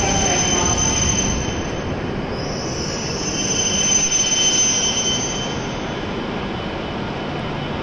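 E7 series Shinkansen train pulling slowly into the platform as it brakes to a stop, with a rumble and a high-pitched squeal that shifts pitch partway through. The squeal fades about two-thirds of the way in, leaving a quieter steady hum.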